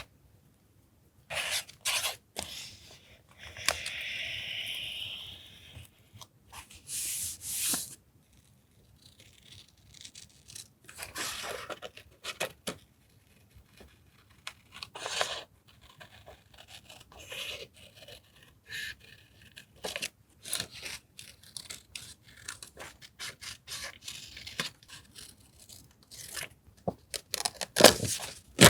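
Paper being handled for collage journaling: irregular rustling, scraping and tearing in short bursts with quiet gaps between them, with one longer tear or rub a few seconds in.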